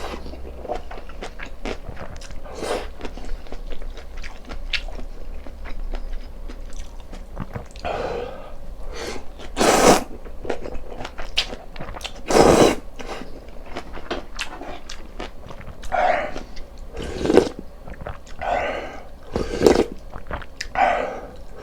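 Close-miked eating sounds: steady chewing and biting, with louder noisy bursts every few seconds.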